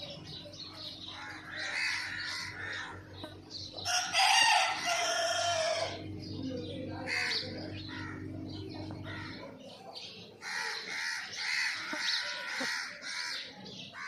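A rooster crows once about four seconds in, the loudest sound, with chickens clucking and house sparrows chirping around it.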